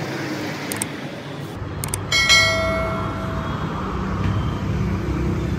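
A subscribe-button animation sound effect: a couple of sharp clicks, then a bell chime that rings and fades over about a second, over steady background noise.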